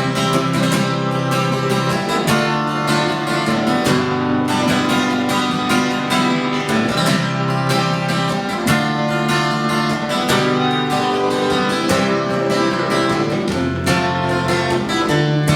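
Acoustic guitar strummed through an instrumental break in a folk song, with steady chords changing every second or two.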